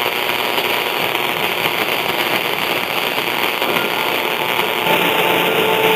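Medium-wave AM radio tuned to a distant station on 1260 kHz, giving steady static hiss with the weak signal buried in it. Faint music comes through near the end.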